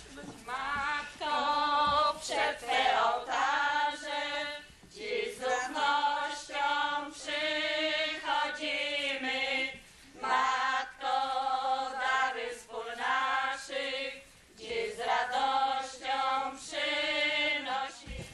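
A group of women singing a song together, in phrases with short breaks for breath between them.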